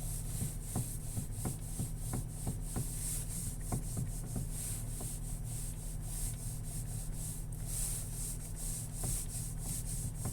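Nissan X-Trail T32 steering knocking as the wheel is turned: a string of irregular sharp, metallic-sounding clicks and scrapes over a steady low hum. It appeared on a cold morning; the owner wonders about ice but finds the sound too metallic for that.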